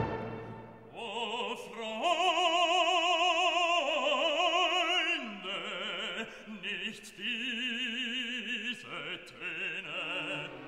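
Background music: a classical operatic voice singing long held notes with wide vibrato, moving to a new pitch every second or two.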